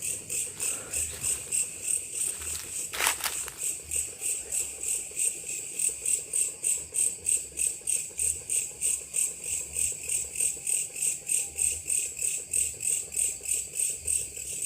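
Insect chirping in a steady, high-pitched rhythm of about three to four pulses a second. A single sharp knock about three seconds in.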